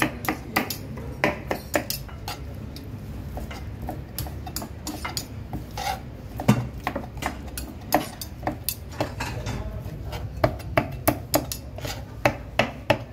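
Kitchen knife chopping tomatoes on a cutting board: a run of sharp, uneven knocks, several a second, over a steady low background rumble.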